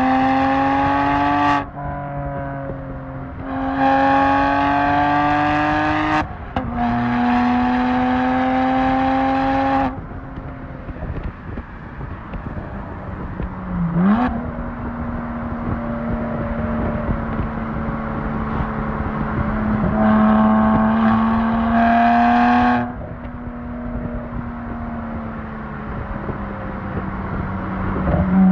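BMW 1M Coupe's twin-turbo N54 inline-six through a full Akrapovic titanium exhaust, pulling hard in several bursts of acceleration with rising pitch and a quick upshift, easing off in between. About halfway through there is a short sharp blip of revs, then a steady cruise before it pulls hard again.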